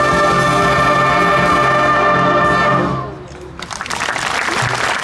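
Brass choir of trumpets and trombones holding a final chord that dies away about three seconds in. About half a second later, applause breaks out.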